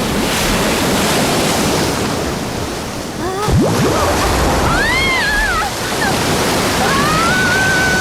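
Cartoon sound effect of rushing, surging floodwater, loud and steady. A sharp upward glide comes about three and a half seconds in, then several high, gliding squeals over the water in the second half.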